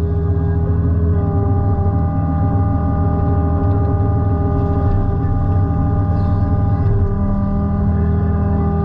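Takeuchi TB145 mini excavator's diesel engine running steadily at working revs, driving the hydraulics for a cutter-bar reed mower. A steady hum and whine sit together, and the low tone shifts slightly about seven seconds in.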